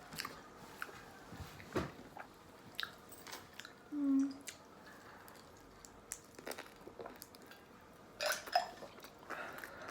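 Close-miked chewing and biting of pizza, with scattered crunchy clicks and a brief low hum about four seconds in.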